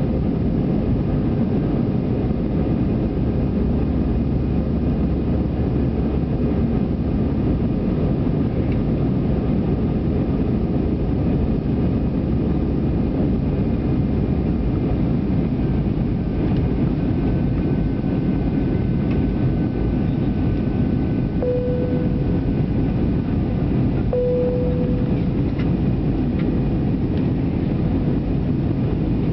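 Airbus A319 cabin noise in the climb after take-off: the steady rumble of the jet engines and rushing air past the fuselage, with a faint steady hum. Near the end, two short tones sound about two and a half seconds apart.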